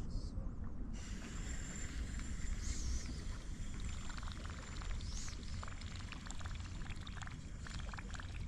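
Water lapping and sloshing quietly around an angler's float tube over a steady low rumble. Two short high chirps from a bird come about three and five seconds in.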